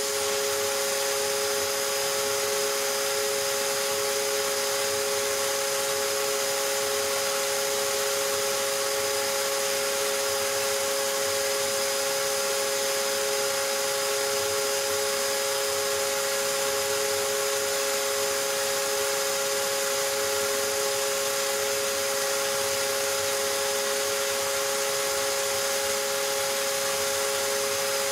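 Stepcraft M1000 CNC router's spindle running at constant speed with a steady whine that holds one pitch, engraving lettering into a wooden panel with an engraving bit.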